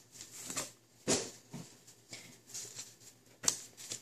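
A sheet of origami paper being handled, folded and creased by hand on a table: a few short, scattered rustles and scrapes, the loudest about a second in and another near the end.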